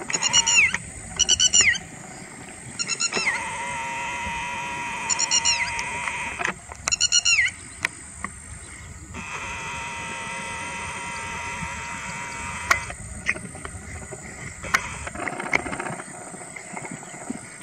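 Whiskered terns calling: short, high, repeated calls in about five bouts over the first eight seconds, with fewer calls after that and a steady high tone in the background.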